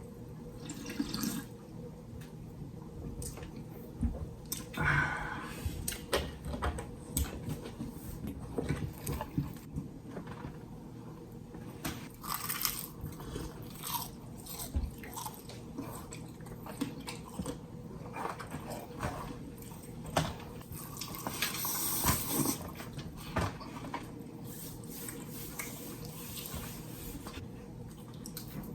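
Close-miked eating of fried chicken: irregular bites, wet chewing and mouth clicks, with a few longer noisy stretches.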